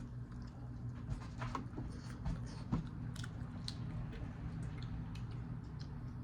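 Close-up chewing and biting of seasoned chicken wings, with scattered small sharp clicks of the mouth and food. A steady low hum runs underneath.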